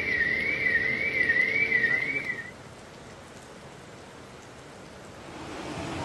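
A warbling, whistle-like tone that rises and falls about twice a second for the first two and a half seconds, over a hiss of water. After the tone stops, the softer, steady hiss of water and rain remains, swelling a little near the end.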